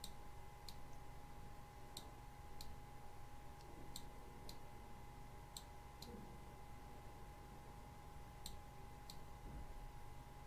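Computer mouse clicking faintly as sliders are dragged in photo-editing software, about five pairs of clicks, each press and release roughly half a second apart. A faint steady electrical hum runs underneath.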